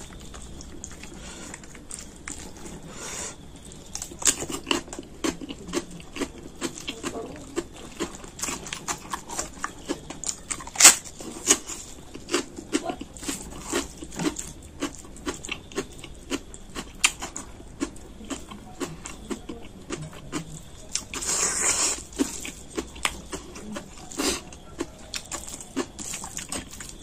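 A hand mixing rice and chicken curry on a steel plate: many small wet squelches and clicks as the fingers work the food and tick against the metal. Near the end, a short rush of noise.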